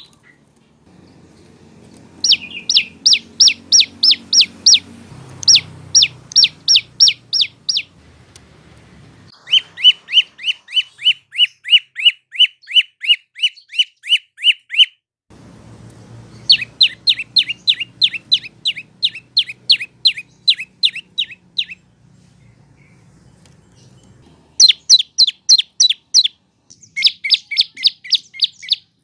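A prenjak lumut (lancur) singing its rapid trilling song: phrases of sharp, evenly repeated downslurred notes, about four a second, lasting two to five seconds each with short pauses between. A faint low rumble sits under some of the phrases.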